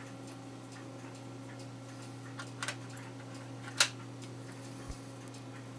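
Cuckoo clock movement ticking quietly over a steady low hum, with a few sharper clicks about halfway through.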